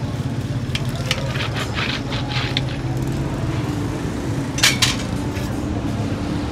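Metal disc roller cutter clicking and scraping as it scores a slab of set peanut-jaggery chikki on a metal tray, over a steady low hum. Two louder sharp clacks come about four and a half seconds in.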